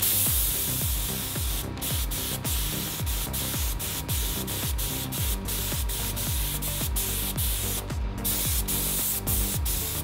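Compressed-air gravity-feed spray gun hissing steadily as it sprays primer, the hiss breaking off briefly twice. Background music with a steady beat runs underneath.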